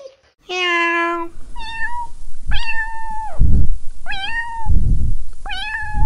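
Domestic cat meowing four times, each meow drawn out and rising at its start. The meows follow a flat, steady tone about half a second in.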